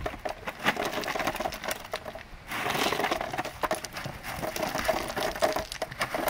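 Drain rock poured from a plastic five-gallon bucket into a trench: stones clattering and rattling as they fall onto the rock and the buried drain pipe, with a denser rush of pouring about two and a half seconds in.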